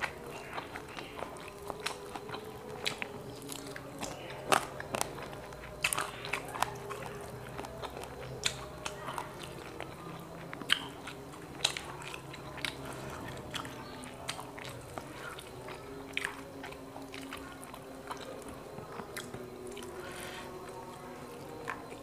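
A person chewing grilled quail eaten by hand, close to a clip-on microphone, with frequent irregular sharp crunches and mouth clicks.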